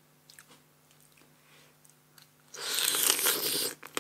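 Blue swimming crab shell being bitten and cracked apart. A few faint clicks come first, then a loud crunching crackle that lasts about a second, beginning a little past halfway.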